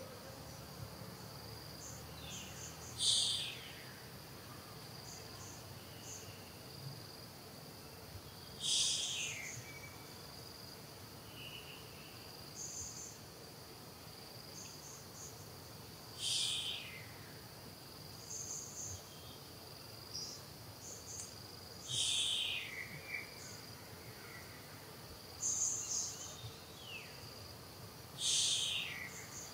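Steady high-pitched drone of insects, with scattered short high chirps. About six times, a louder, short call sweeps downward in pitch, separate from the drone.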